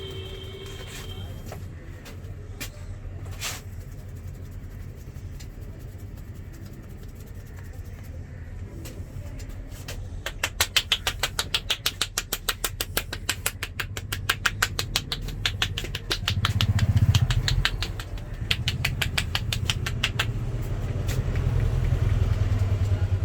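Fast, even slaps of a barber's hands in a head massage, several strikes a second for about ten seconds starting near the middle, over steady street traffic noise; a vehicle rumbles past in the latter part.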